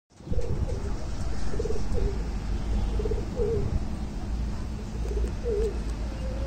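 Rampuri pigeons cooing: about four short, wavering coos spread over the first six seconds, over a steady low rumble.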